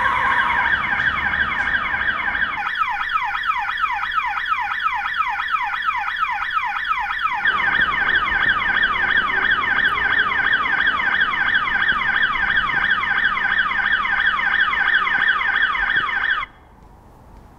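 Electronic alarm siren sounding, a rapid run of rising sweeps, several a second, that cuts off suddenly near the end.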